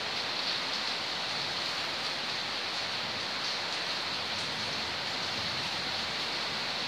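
A steady, even hiss of noise, with no breaks and no strokes standing out.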